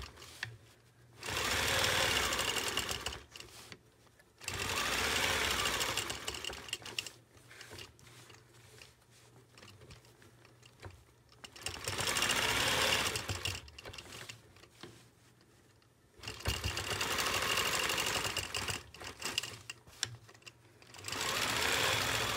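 Longarm quilting machine stitching in about five separate runs of a few seconds each, with quiet pauses between, as it sews curved arcs guided along an acrylic circle ruler.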